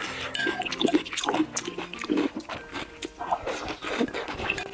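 A metal spoon scraping and clinking in a glass bowl as food is scooped up, with eating sounds and soft background music.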